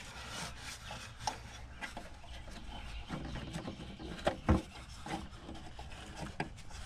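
Gloved hands working plastic vacuum-line quick connects loose from the engine cover: rubbing and scraping with scattered small clicks and knocks, a sharper knock about four and a half seconds in.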